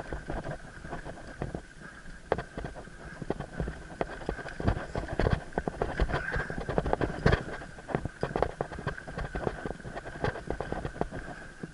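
Mountain bike ridden fast over rough forest singletrack: irregular clatter and knocks of the frame, chain and wheels over roots and bumps, over a rumble of tyre noise. A steady high whine runs underneath.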